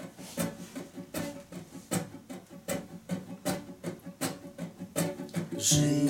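Acoustic guitar strummed in a steady rhythm, about two to three strokes a second, as the opening of a song, getting louder near the end.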